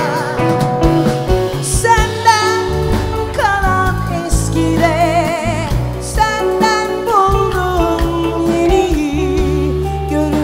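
Live band music: a female vocalist sings held notes with vibrato over electric guitar, drums and bass.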